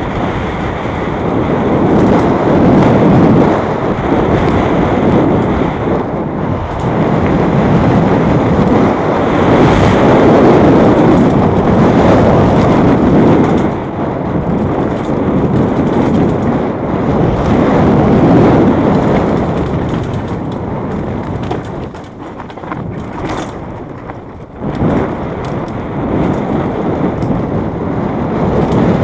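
Fast mountain-bike descent on a dry dirt trail: a loud, continuous rush of wind across the camera's microphone mixed with the rattle of the enduro bike and its tyres on the dirt, swelling and easing with speed and dropping back for a few seconds near the end.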